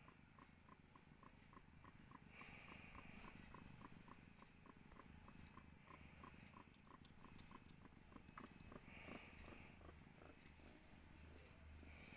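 Tortoiseshell mother cat in labour purring faintly while being stroked, with a few short high squeaks at intervals.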